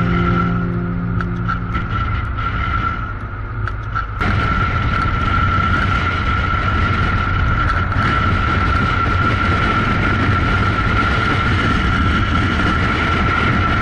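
Yamaha FJR1300 motorcycle on the move, a steady engine and road-wind rush with a constant high whine. The noise jumps up suddenly about four seconds in and then holds steady.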